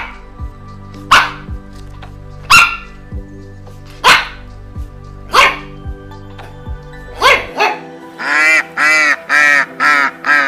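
Pomeranian barking in sharp single barks about every second and a half, seven in all, the last two close together. From about three-quarters through, a waterfowl gives about five short nasal calls in quick succession, over steady background music.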